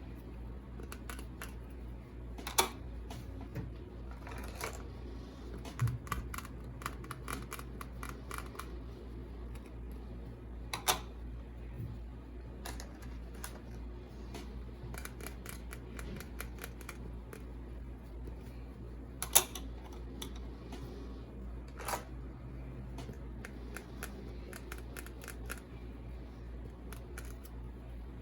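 Irregular sharp clicks and taps from small plastic toys and packaging being handled, with a few louder knocks scattered through, over a steady low hum.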